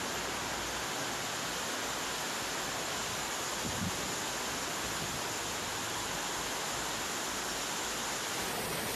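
Steady, even rushing noise of heavy rain and running floodwater.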